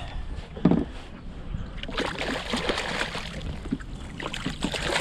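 A single sharp knock on the kayak a little under a second in, then a spell of crackling splashes and rustling as the caught fish is handled over the water.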